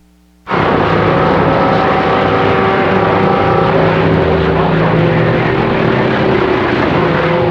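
CB radio receiving after the operator unkeys: about half a second in, a loud steady hiss of band noise cuts in, with several steady whistling tones of open carriers over it, some of which drop out midway.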